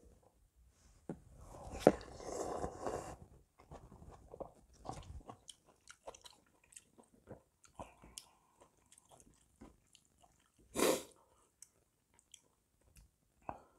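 Close-up eating of spicy intestine stew with noodles and rice: a loud slurp of a spoonful about two seconds in, then wet chewing with many small clicks. A short, loud burst of noise comes near eleven seconds.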